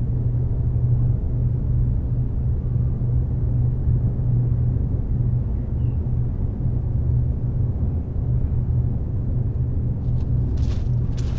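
A steady low rumble, with a few sharp clicks near the end.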